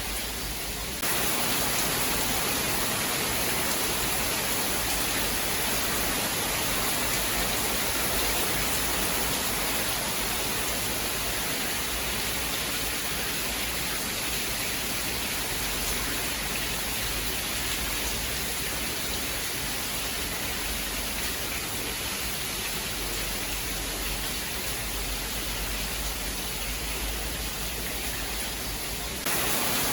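Steady rain, an even hiss with no thunder. The level steps up suddenly about a second in and drops back near the end, like a join between recordings.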